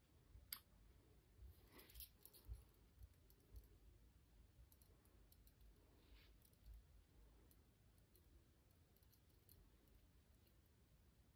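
Near silence, with a few faint scattered clicks and rustles from hands handling and shaping a lace ribbon bow.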